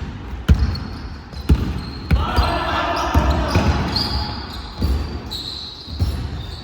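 A basketball bouncing on a gym's hardwood floor in a large hall, with thumps about once a second.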